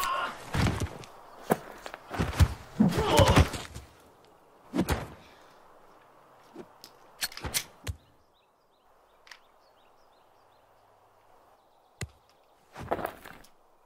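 A scuffle: a string of thuds and knocks with strained cries through the first few seconds, then scattered knocks, a quiet stretch, and a single sharp click near the end.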